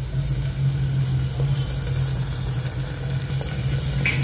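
Sliced onions frying in hot oil in a pressure cooker on high flame, a steady sizzle, as ginger-garlic paste is spooned in with a couple of faint knocks of the spatula. A steady low hum runs underneath.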